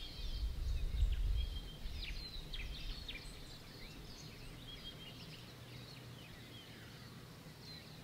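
Wild birds calling with many short chirps and whistles, busiest in the first half. Under them is a low rumble, loudest in the first couple of seconds, that then eases to a quiet outdoor background.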